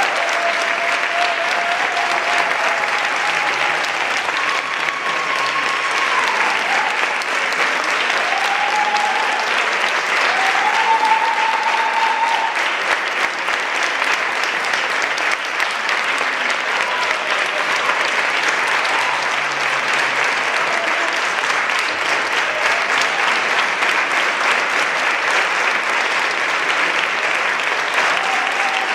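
Audience applauding steadily, with a few voices calling out over the clapping in the first half.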